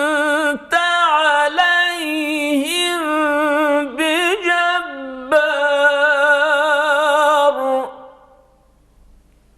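Man's voice reciting the Quran in melodic tilawah style in maqam Chahargah (Jiharkah). He holds long notes, ornamented with trills and glides, with two short breaks, and the phrase fades out about eight seconds in.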